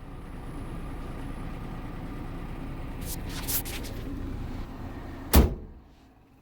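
A vehicle's steady low rumble with a few short clatters, then a car door shut with one sharp thud about five seconds in, after which the rumble drops away.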